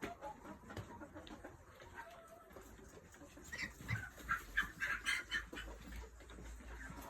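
A flock of broiler chickens calling, many short overlapping calls, with a louder, denser flurry in the middle. A low rumble sits under the second half.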